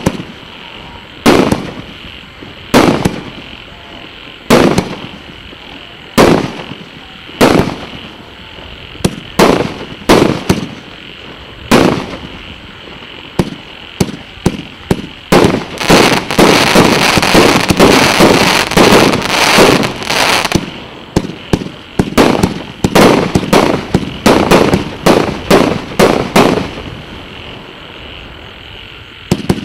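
A 200-shot, 1.25-inch firework battery (cake) firing: loud single shot-and-burst reports about every second and a half, then a dense unbroken stretch of reports for about five seconds in the middle, then quicker shots about two a second, with a brief lull near the end.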